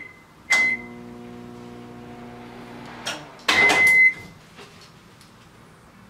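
Microwave oven started with a click and a short beep, then running with a steady electrical hum from its transformer and magnetron. Near the middle the hum stops, and a longer beep comes with a louder clatter as the cycle ends and the door is opened.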